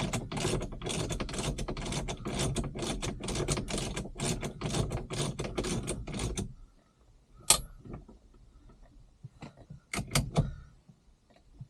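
Ratchet clicking rapidly as the steering wheel's retaining bolts are tightened onto the boss, stopping after about six seconds; a few single clicks and knocks follow.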